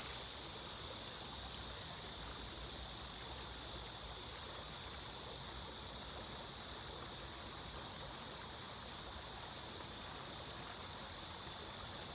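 Steady high hiss of outdoor background noise, unchanging and without distinct events.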